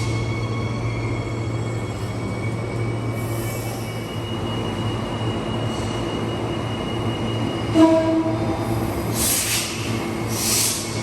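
Electric suburban train at a station platform: a steady low hum with thin high-pitched whining tones. About eight seconds in comes a brief loud tone, then two short air hisses near the end.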